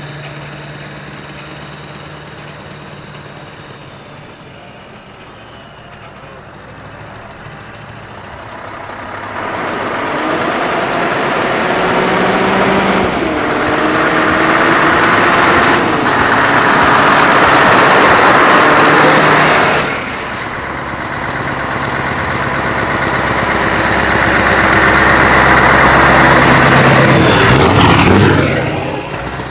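Scania V8 truck engines with open exhaust pipes idling, then pulling away loudly one after another. The pitch steps up through the gears in two long runs, starting about ten seconds and about twenty seconds in, and the second truck passes close by near the end.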